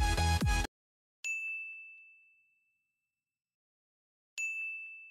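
Electronic dance music cuts off abruptly, then two identical bright ding chimes about three seconds apart. Each ding is a single sharp strike that rings on one tone and fades out over about a second and a half.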